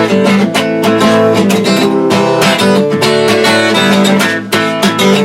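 Acoustic guitar strummed in a steady rhythm, an instrumental passage of a folk-country song with no singing.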